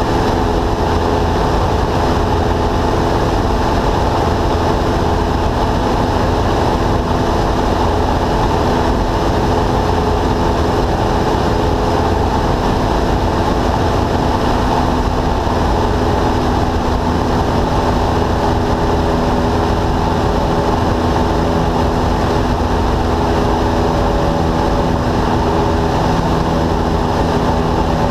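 Cessna single-engine light airplane's piston engine and propeller running steadily in flight, heard inside the cabin as an even drone with a steady hum of tones over rushing air noise.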